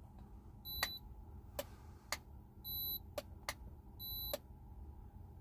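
Digital thermometer beeping as temperature readings are taken: four short, high electronic beeps, each about a third of a second long, with sharp clicks scattered between them.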